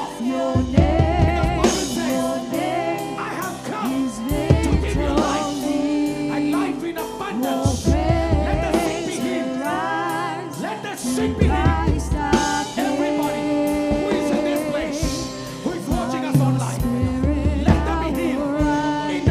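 Live gospel worship music: singing over a band with bass and drums, in a steady pulse with a swell roughly every three to four seconds.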